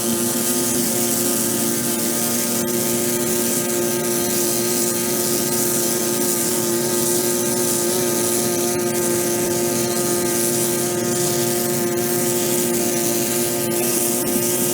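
Pressure washer running steadily: a constant motor hum under the hiss of the water spray, with a few faint clicks.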